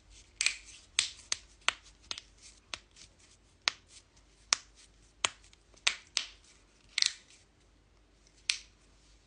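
Joints cracking: a rapid, irregular series of sharp pops and clicks, some much louder than others, thinning out to a couple of isolated cracks near the end.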